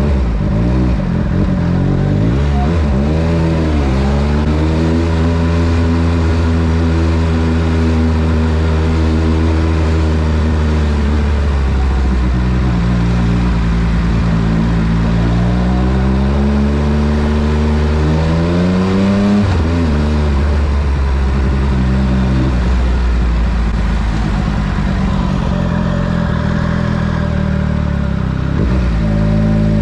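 Triumph Speed Triple RS inline three-cylinder engine and Scorpion titanium exhaust, heard from the rider's seat while riding. The revs ease off a few seconds in, hold steady, build slowly, then drop sharply about two-thirds of the way through and settle lower.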